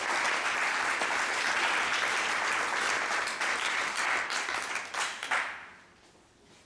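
Audience applauding, a steady patter of many hands clapping that dies away about five and a half seconds in.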